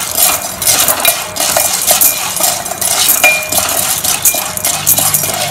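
Metal slotted spoon stirring unpopped popcorn kernels in oil in a stainless steel pan: a dense rattle of kernels, with the spoon scraping and clinking against the steel and short rings from the pan.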